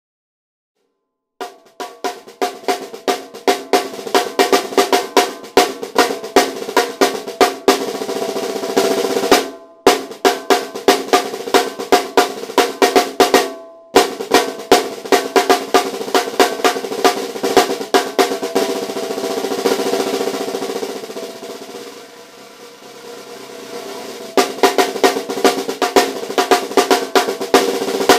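A 10-inch by 8-inch mahogany stave-shell snare drum played with sticks: strings of accented strokes and rolls, the head ringing with a steady tone under them. The playing begins about a second and a half in, breaks off briefly twice, and past the middle turns to a smooth roll that fades down and swells back up before the strokes return.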